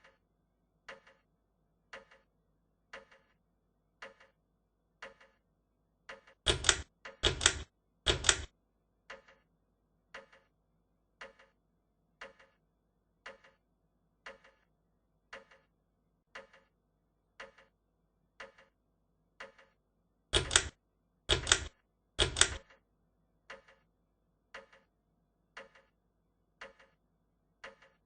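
Hunter Sea Island/Air ceiling fan running with a light double tick about once a second over a faint hum. Twice, a run of three much louder, rattly clicks about a second apart.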